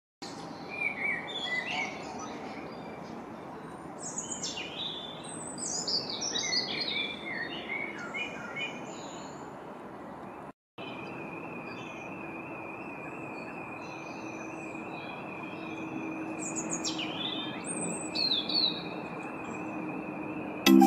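Garden birds singing and chirping in quick sweeping phrases over a steady background noise. After a break about halfway through, a steady high whine and a low hum sit under the background, with a few more bird calls near the end.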